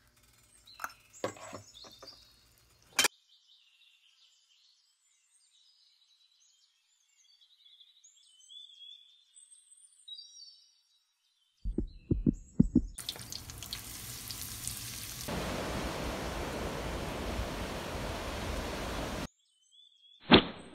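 Birds chirping and calling, after a few clicks at the start. About twelve seconds in come several heavy thumps, then a steady rushing hiss that lasts about six seconds and cuts off suddenly, and a sharp hit near the end.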